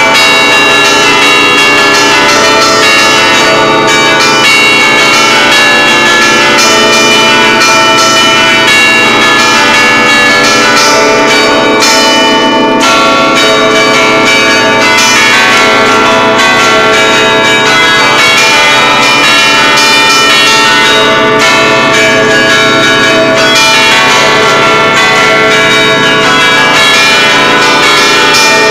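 Church bells, a tuned set in A cast by the Capanni foundry, struck in quick succession from a hand-played baton keyboard by two ringers in the Bergamasque allegrezza style, ringing out a waltz tune. The strokes come thick and overlapping, so the bells ring loud and continuously without pause.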